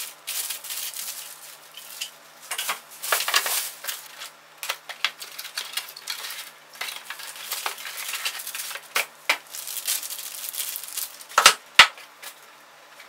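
Parts and packaging being handled and moved about during unboxing: rustling and clattering with scattered clicks, and two sharp knocks close together about a second and a half before the end.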